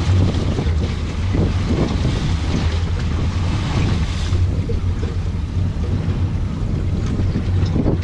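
Wind buffeting the microphone on a small boat at sea, over a steady low hum from the boat's idling engine and waves against the hull.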